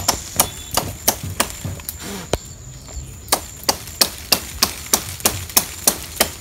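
Rapid, regular chopping strikes of a blade on palm leaves, about three a second, with a brief pause near the middle.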